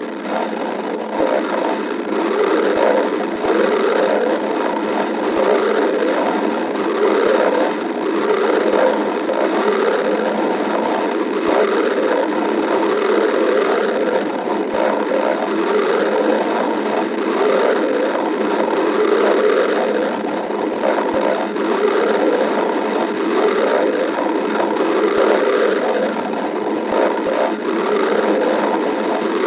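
Stomach growling: continuous gurgling rumbles that swell and ebb unevenly without a break.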